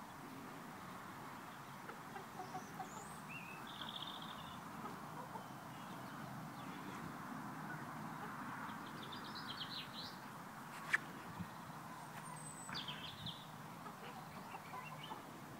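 Faint, scattered high bird chirps over a steady background hum, with a single sharp click about eleven seconds in.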